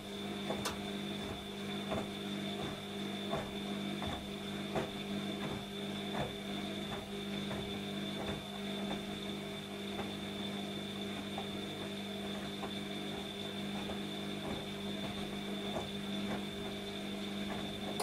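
Bosch Maxx 5 front-loading washing machine in its wash cycle, the drum turning laundry over: a steady motor hum with a high whine, and frequent soft knocks as the wet clothes drop inside the drum.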